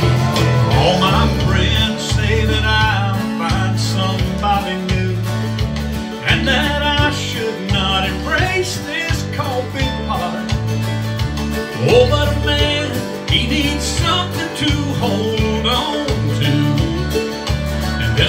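Country instrumental break between verses: acoustic guitar strumming over a steady, evenly paced bass line, with a lead melody of bending, sliding notes on top.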